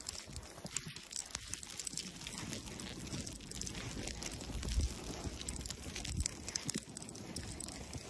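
Footsteps in deep fresh snow: boots crunching through it step after step, with many small irregular crackles.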